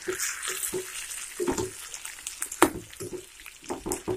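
Stuffed brinjal curry simmering in a pan of oil and masala gravy with a little water in it: a bubbling, sizzling hiss with irregular pops and clicks.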